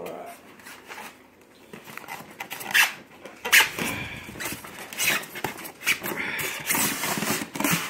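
A pet dog vocalizing in a run of short, sharp sounds, loudest about three seconds in.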